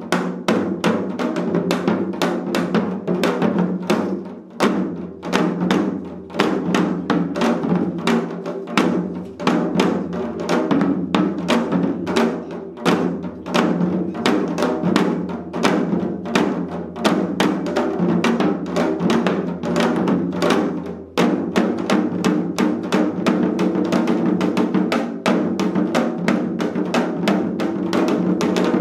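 Several janggu, Korean hourglass drums, played together in seoljanggu: fast, dense stick strokes on the drumheads, mixing sharp cracks with deeper booms.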